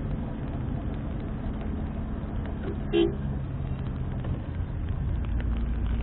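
Car engine and road noise heard from inside the cabin while driving, a steady low hum whose engine note drops slightly about halfway. A short higher-pitched blip sounds near the middle.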